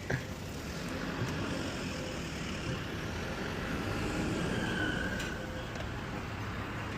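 City street traffic noise: a steady rumble of road vehicles that swells a little about four to five seconds in, as a vehicle passes.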